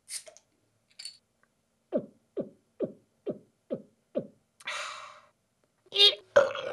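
Intro sound effects: two light clicks, then six quick gulps a little under half a second apart, each dropping in pitch, then a short breathy hiss and two loud short vocal blasts near the end.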